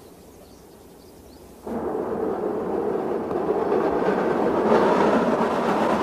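A train running over a bridge: a steady rumble that starts suddenly a little under two seconds in, after faint hiss.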